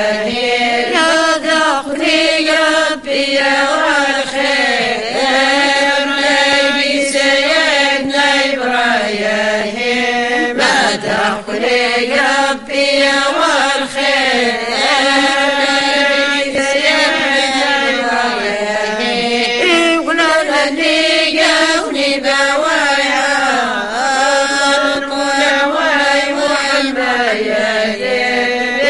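Women's voices chanting a devotional praise song (madih) for the Prophet together, with long held notes that slide up and down in pitch.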